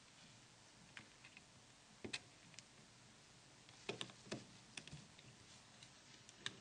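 Faint, scattered clicks and taps of small plastic parts being handled and pressed into place: the Nokia 9300i's command buttons being fitted into its C-cover. There are a few isolated clicks, then a pair, and a small cluster in the middle.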